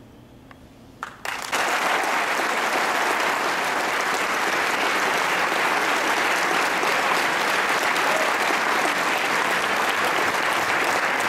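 After a brief hush, an audience breaks into applause about a second and a half in, and the clapping goes on steadily.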